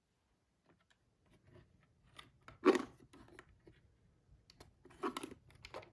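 Faint scattered clicks and light scraping, with one louder click about three seconds in and a short cluster of clicks near the end.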